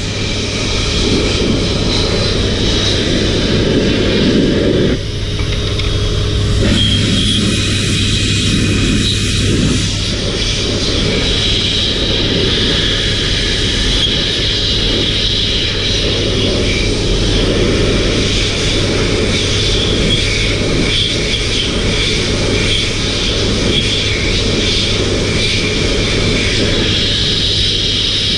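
Electric air-moving machine running steadily, with a constant motor hum and a loud rush of air through a ribbed hose.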